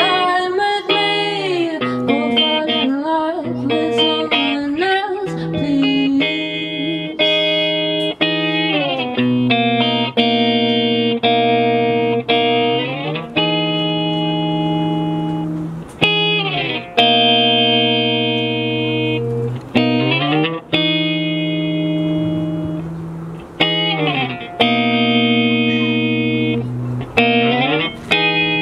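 Live guitar music, an instrumental passage: a melody line bending in pitch over the first eight seconds or so, then held chords that change every second or two.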